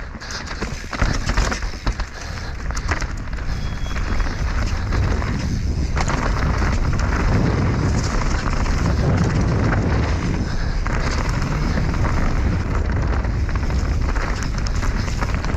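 Mountain bike descending a rocky dirt trail at speed: tyres rolling over dirt and stones and the bike rattling over bumps, with wind rumbling on the microphone. The knocks and rattles are sharpest in the first few seconds, and the wind rumble grows heavier after that.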